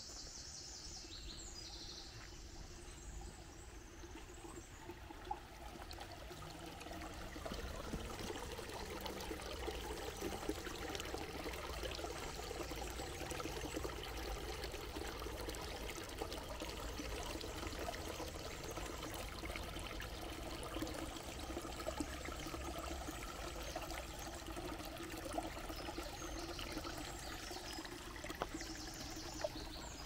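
Water from a small park waterfall splashing and trickling steadily, growing louder over the first eight seconds or so, then holding level. A few bird chirps come near the start and near the end.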